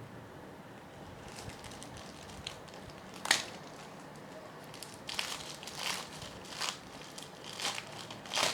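Packaging being opened by hand: rustling and crinkling, with one sharp snap a little over three seconds in, then a run of irregular crinkling bursts from about five seconds on.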